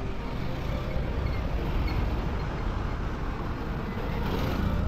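Road traffic: cars passing by on the road, a steady low rumble of engines and tyres that swells near the end as a vehicle goes by.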